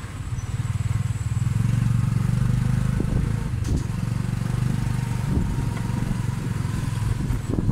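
Motorcycle engine pulling a Cambodian remorque tuk-tuk, heard from the passenger carriage, running under way. It gets louder over the first second or two, then runs steadily, with a couple of light knocks from the ride.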